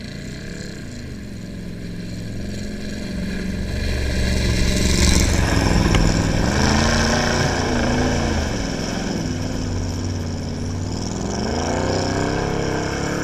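Pickup truck engine revving hard as the truck churns through a mud-bog pit, its pitch rising and falling, with the splash of mud thrown by the tyres. It swells as the truck passes close about four to seven seconds in, then eases as the truck moves off down the pit.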